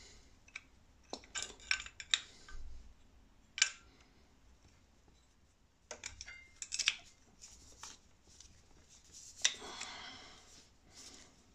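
Small metallic clicks, taps and scrapes of new brake pads being worked by hand into a Suzuki GSX-S1000's front brake caliper, with a longer scraping rattle near the end.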